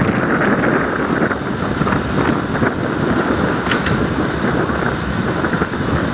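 Diesel engine of a JR West KiHa 40 railcar idling steadily while the car stands at the platform.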